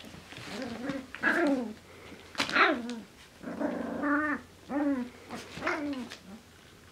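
Two four-week-old Finnish Spitz puppies growling and yapping as they play-wrestle: a string of about six short, high-pitched growl-barks that rise and fall in pitch, the loudest about two and a half seconds in.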